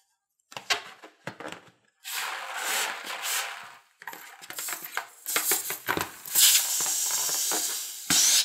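Scissors snipping into a filled rubber balloon, with the rubber rubbing and crinkling as it is handled: scattered clicks, a stretch of rubbing, then denser snips and rustling with a sharp loud sound near the end.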